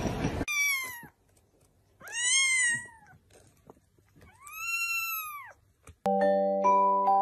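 Orange-and-white kitten meowing three times, high-pitched calls that rise and fall, the last one the longest. Near the end, music with mallet-instrument notes begins.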